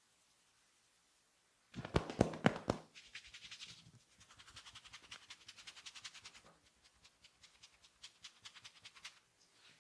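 Hands working on oiled skin during a massage. About two seconds in comes a cluster of five or six loud, sharp cracks, then a long, fast, steady patter of lighter slapping taps.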